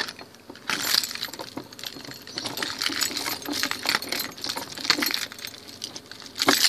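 Rustling with many irregular small clicks and clinks, typical of the recording phone being handled or carried while covered.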